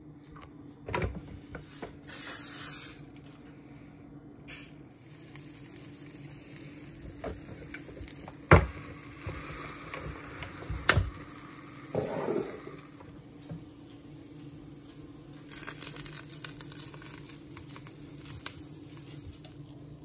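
Kitchen cooking sounds over a low steady hum: sharp knocks of utensils and of the waffle maker being handled, the loudest about eight and eleven seconds in, and short hisses, one of them likely cooking spray greasing the waffle iron.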